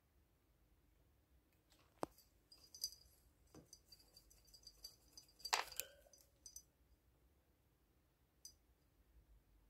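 Faint scattered clicks and light ticking, with one sharp click about two seconds in and a brief louder scrape a little after halfway; otherwise near silence.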